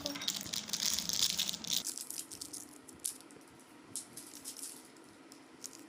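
Small packaged snacks being tipped out onto a plate: a dense rattling pour for about two seconds, then scattered clicks and packet rustling.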